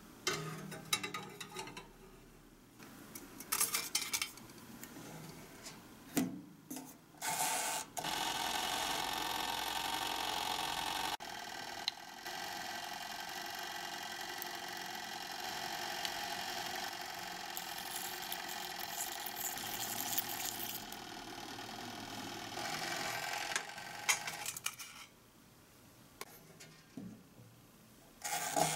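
Light clinks and scrapes of a small metal baking tray and glassware being handled. For much of the time a steady electric hum from a small appliance runs under them, then drops away near the end.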